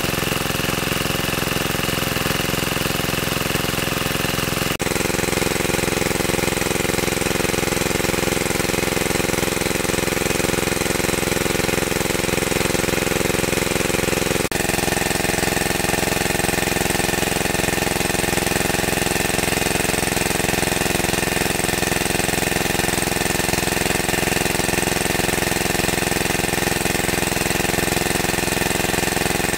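Small engine-driven water pump running steadily at an even speed. Its tone shifts abruptly twice, about five and fifteen seconds in.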